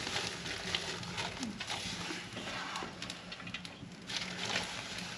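Wood cooking fire in a mud hearth crackling and hissing under the pots, with many small irregular clicks and pops over a steady hiss.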